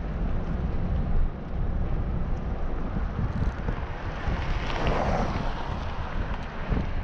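Wind buffeting the microphone in a low, gusty rumble, over street traffic; a vehicle hisses past about five seconds in.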